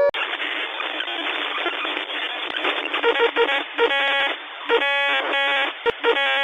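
An alert siren cuts off abruptly and gives way to a loud, narrow-band radio static. From about three seconds in, the static is broken by short blips and a few bursts of harsh buzzing tones, like a distorted broadcast signal in a mock emergency alert.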